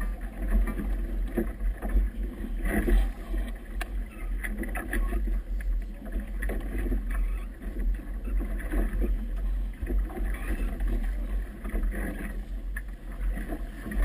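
Wind buffeting the microphone with a steady low rumble, over irregular splashing of choppy water against a motorboat's hull, rising and falling every second or so.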